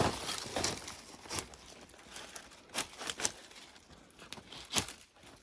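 Brush and twigs being handled and broken: a rustle at the start, then separate sharp snaps scattered through the rest, a couple close together in the middle.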